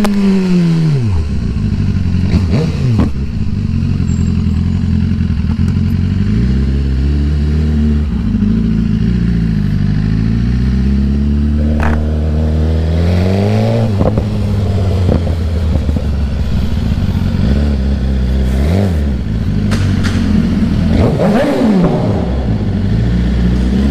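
BMW S1000RR inline-four engine running under way. The revs fall at the start, settle into a steady low cruise, climb again about halfway through, and rise and drop several times in quick succession near the end.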